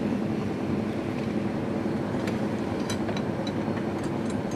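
A fishing boat's engine running steadily, an even mechanical hum with a few faint ticks.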